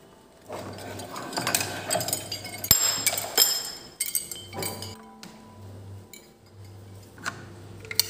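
Metal and glass trophies and medals clinking and rattling against each other and the wooden shelf as they are handled and lifted out, with a sharp knock about halfway through. It dies down after about four seconds, leaving light taps.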